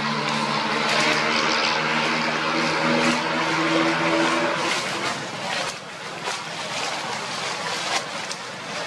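A motor engine running steadily with a level hum, which fades out about four to five seconds in. What remains is a steady hiss with a few sharp clicks.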